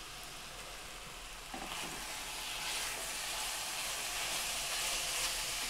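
Cubed goulash meat sizzling as it browns in a Petromax FT 4.5 cast-iron Dutch oven, stirred with a wooden spatula. The sizzle grows a little louder about a second and a half in.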